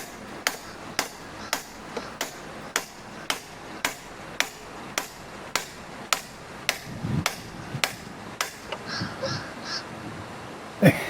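Steady hammer strikes, about two a second, on the seized cylinder head bolts of a 1997 Johnson 115 outboard powerhead, tapping to break the bolts loose; the strikes stop about eight and a half seconds in.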